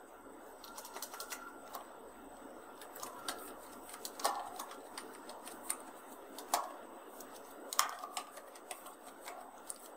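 Typing on a computer keyboard: a quick, irregular run of key clicks, with a few louder keystrokes standing out.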